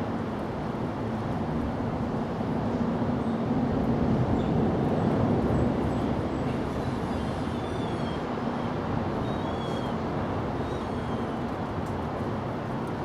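Steady outdoor background rumble that swells louder a few seconds in and then eases back, with a few faint high chirps later on.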